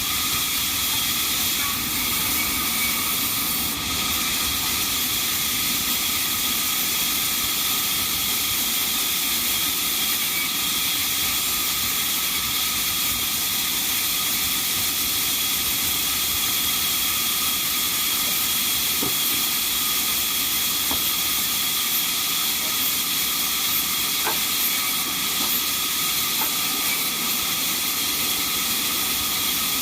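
Band sawmill running continuously: a steady hiss with a high, even whine and no breaks.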